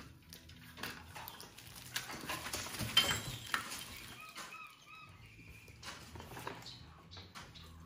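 Rustling and clattering of small plastic toys and shredded paper being handled on a cluttered table, busiest about three seconds in, with a few short high squeaks a little after the middle.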